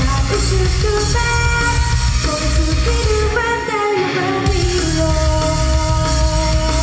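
A woman singing a pop song live into a handheld microphone over loud backing music. The bass and drums cut out for about a second near the middle, then come back as she holds one long note.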